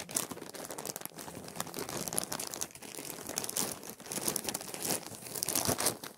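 Thin plastic packaging of a vacuum-sealed bundle crinkling and rustling in irregular crackles as hands work the bag open and pull it off.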